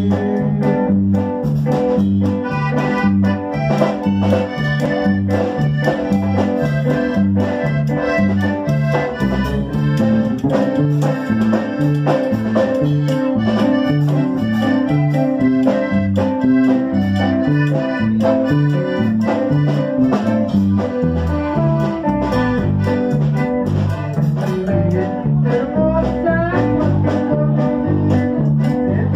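Live band of piano accordion, electric guitar and electric bass playing a regional Mexican tune, the bass alternating between low notes on a steady beat under the accordion.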